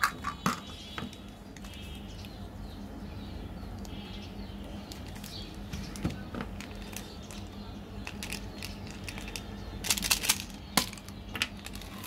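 Small plastic candy containers and candies being handled: scattered light clicks and taps, with a cluster of louder clicks about ten seconds in.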